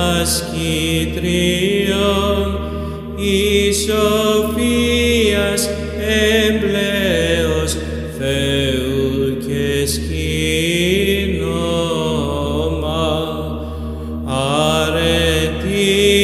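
Byzantine chant from a Greek Orthodox supplicatory canon: a voice sings long, melismatic lines that glide from note to note, over a steady low held drone (the ison).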